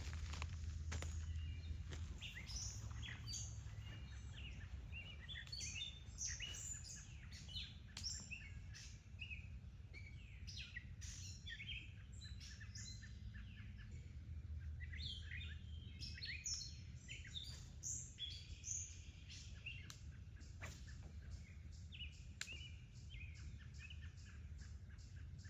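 Small birds chirping and calling in many short, high notes over a steady low rumble.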